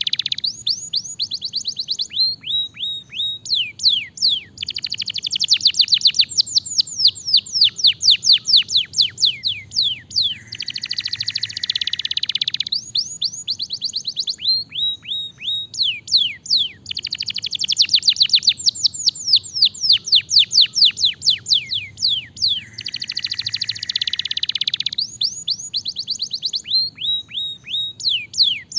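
Domestic canary singing a long, fast song of rapid trills, runs of downward-sweeping whistled notes and buzzy rolls. The same run of phrases repeats about every twelve seconds.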